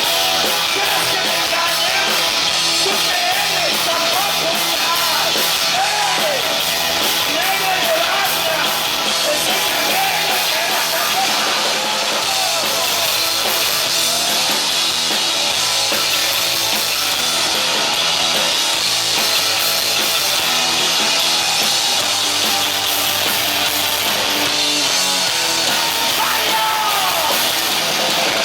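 Rock band playing live at steady full volume, with shouted singing over the band.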